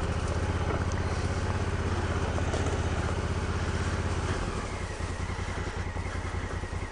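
Honda Africa Twin CRF1000L's parallel-twin engine running at low trail speed. About four seconds in, the engine note drops lower and quieter.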